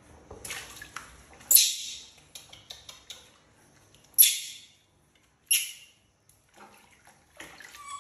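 Water splashing in a plastic basin as a baby monkey is washed by hand: several short, sharp splashes, the loudest about a second and a half, four and five and a half seconds in, with quieter sloshing between.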